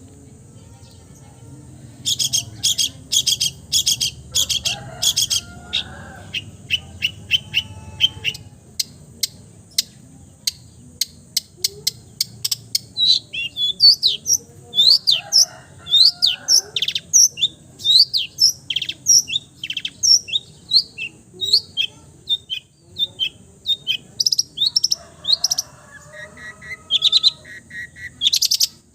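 Long-tailed shrike (cendet) singing a loud mimicking song. About two seconds in it starts with a fast run of harsh, rapidly repeated notes, which give way to a long stream of quick, high sweeping notes with occasional lower notes mixed in.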